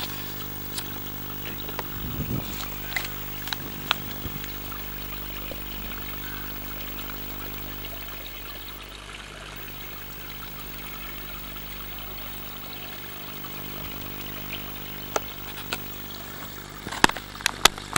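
A motor running steadily, with a few short clicks and knocks scattered through it and a cluster of louder sharp knocks near the end.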